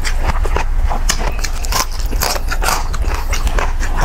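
Close-miked crunching and chewing of crispy deep-fried pork skin (crispy pata), a run of irregular sharp crackles over a steady low hum.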